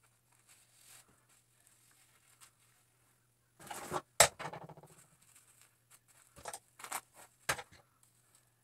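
Handling noises of a plastic highlighting cap: faint rustling as strands of hair are worked out through its holes, with a sharp click about four seconds in and a few more rustles and clicks near the end.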